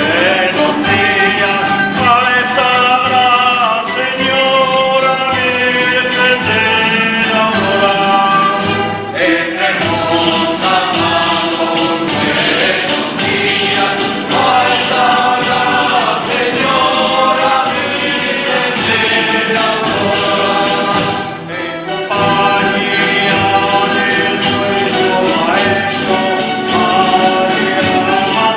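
A despertadores ronda singing a traditional dawn song: a group of voices sings together over string instruments, with a tambourine-like percussion keeping the beat. A brief dip in the music about three-quarters of the way through.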